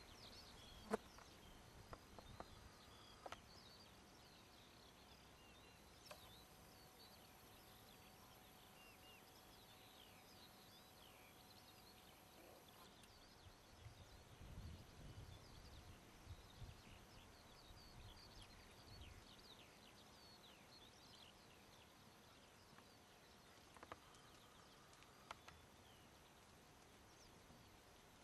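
Near silence outdoors with faint small birds chirping throughout, and a few soft low thumps about halfway through.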